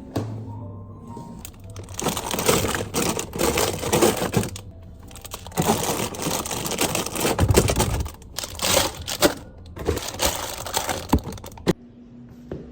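Crackling, rustling noise in several bursts, over background music.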